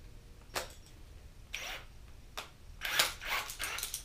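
Clicks and rattles of a cordless drill with a cylinder hone being handled, with no motor running: a few separate sharp clicks, then a quick run of clicks and rattles about three seconds in.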